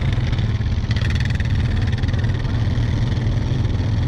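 Quad bike engine running steadily, a continuous low hum, with a brief rattle about a second in.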